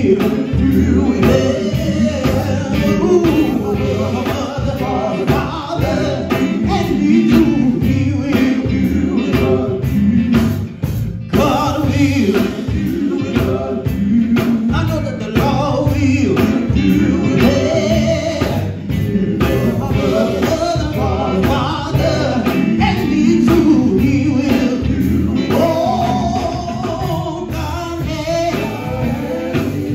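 Live gospel music: a male lead singer sings into a microphone, backed by electric guitar and bass guitar.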